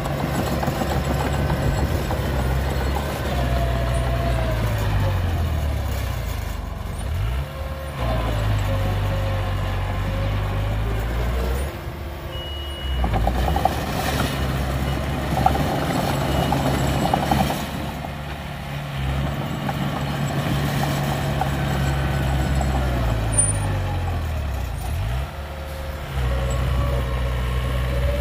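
Komatsu D20P crawler bulldozer's diesel engine running under load while pushing soil. Its pitch sags and picks back up twice as the blade loads. About halfway through there is a stretch of clatter.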